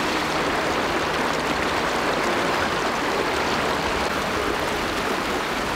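River water rushing steadily over a rocky riffle.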